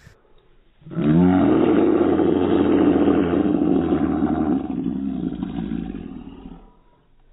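A young man's long, loud, raw yell. It starts about a second in with a quick rise in pitch, is held for several seconds, then fades away near the end.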